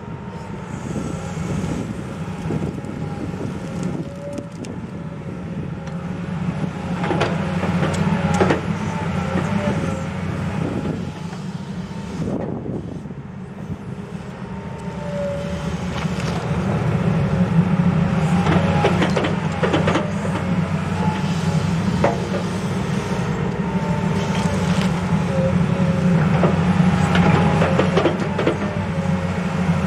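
Komatsu hydraulic excavator working under load as it digs a drainage ditch: the diesel engine runs steadily and gets louder about halfway through as the boom works harder, with a wavering whine above it and several clanks and scrapes of the tilt bucket in wet soil.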